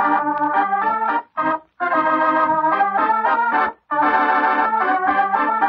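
Organ music from a radio-drama closing bridge: sustained chords played in short phrases, with brief breaks about a second and a half and nearly four seconds in.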